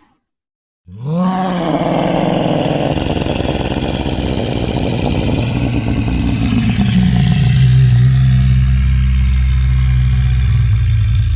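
Cartoon dinosaur sound effect: a long, deep roar that starts after a brief silence with a short swell in pitch, then holds for about ten seconds.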